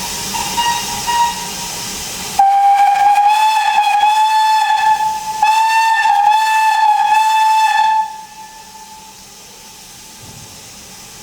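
Steam locomotive whistle: a few short toots over hissing steam, then one long loud blast from about two seconds in, lasting some five seconds with a brief dip midway, after which only a low background remains.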